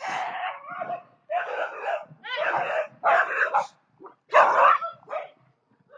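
A dog barking in a series of about six short outbursts, each about half a second long.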